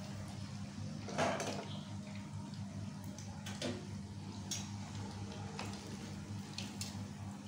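Risoles deep-frying in a pan of oil with a faint, steady sizzle, broken by a few short clinks and knocks, most in the second half, as a wire strainer works in the pan to lift them out. A steady low hum runs underneath.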